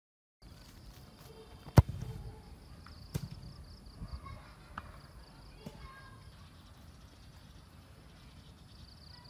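A football struck hard with a sharp thud about two seconds in, then a second thud a little over a second later and a few fainter knocks, over a steady high hiss in the background.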